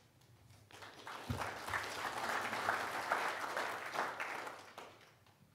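Audience applauding: the clapping swells up within the first second or so, holds, and dies away near the end.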